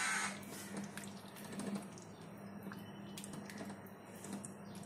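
Spatula stirring milk into a thick chicken gravy in a pan: soft sloshing with many light clicks and scrapes of the spatula against the pan, over a low steady hum. A short loud rush of noise cuts off right at the start.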